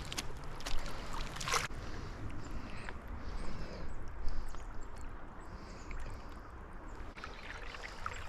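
Creek water running steadily, with a few sharp splashes or knocks in the first couple of seconds.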